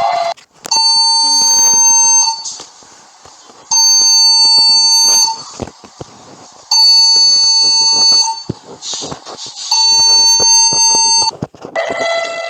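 Emergency alert alarm tone: four long steady beeps, each about a second and a half, repeating every three seconds. Near the end a different, lower alarm tone starts.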